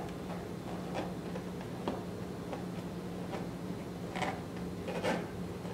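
Faint scattered ticks and light rubbing as an inflated rubber balloon is pressed and rocked in a ceramic bowl of melted chocolate, about one a second, over a steady low hum.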